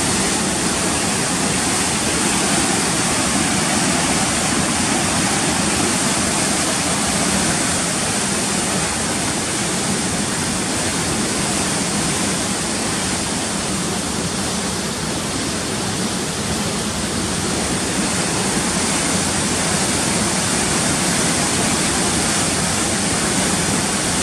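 Floodwater rushing steadily through Little Pine Dam's outflow after heavy rain, a loud, even sound of water in full spate.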